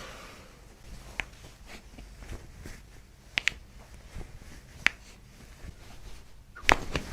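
Joints cracking during a chiropractic adjustment: a few separate sharp pops spread out, then the loudest, a quick cluster of cracks, near the end.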